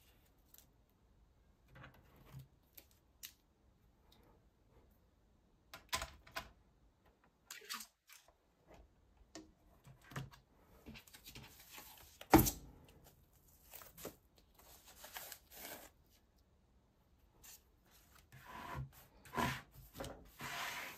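Hands handling the plastic parts of a tablet on a tabletop: scattered light taps, rubbing and rustling. A single sharp knock about twelve seconds in, and a longer rustling scrape near the end.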